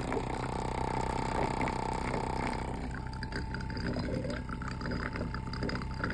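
Water bubbling and gurgling in a glass as air is pushed out of the hose of a running thermoacoustic engine, the engine expelling its excess air. Under it a steady tone from the engine carries on, fainter after about three seconds.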